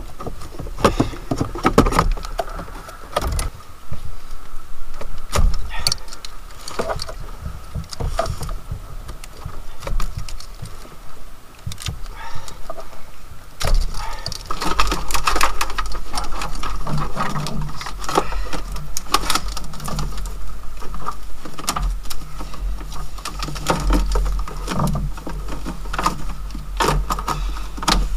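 Car wiring harness being pulled out and handled: wires rustling and plastic connectors clicking and knocking in many short, irregular clatters.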